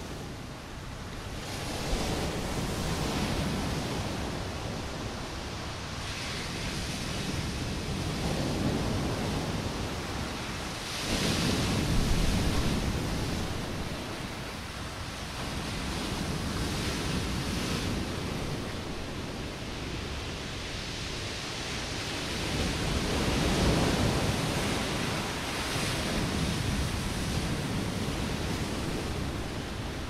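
Stormy sea surf breaking on the shore in repeated swells every few seconds, the biggest about eleven seconds in, with wind blowing across the microphone.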